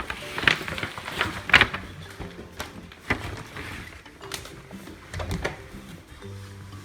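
Gentle background music with held notes, over a run of sharp clicks and knocks, the loudest about half a second and a second and a half in, with more around three and five seconds in.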